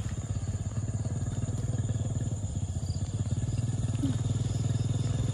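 A motorcycle engine running steadily with a rapid, even pulse. A brief squeak comes about four seconds in.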